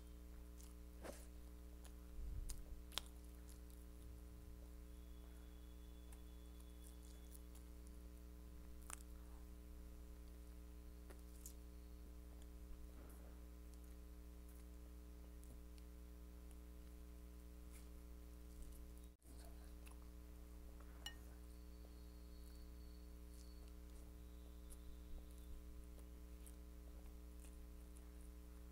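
Faint chewing and mouth sounds of a person eating, with scattered soft smacks and clicks over a steady low electrical hum.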